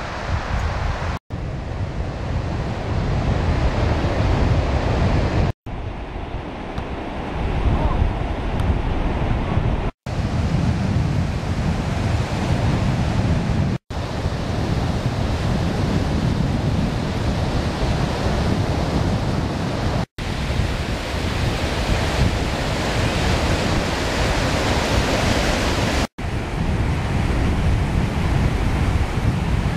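Surf washing onto a sandy beach, with wind buffeting the microphone in a heavy low rumble. The sound is broken by about six brief silent gaps.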